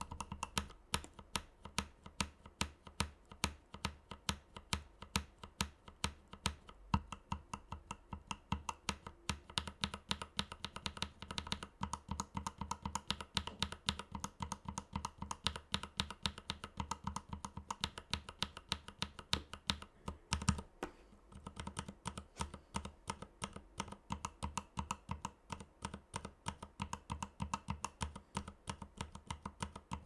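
Mechanical keyboard with tactile switches being typed on steadily, several keystrokes a second, in a sound test. One louder, heavier stroke comes about twenty seconds in, followed by a brief lull.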